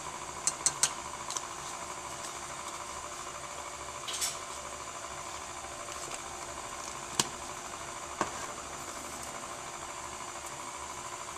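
Electric mixer motor running steadily in the background, beating the peanut butter mixture. In the first second and a half a measuring spoon taps several times against a glass bowl, and a few single clicks and a brief rustle come later.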